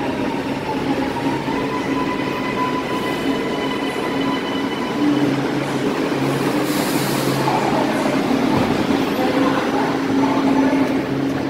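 Milan metro train standing at the platform after arriving: a steady hum with a high whine that stops about five seconds in, and a short hiss about seven seconds in as the doors open.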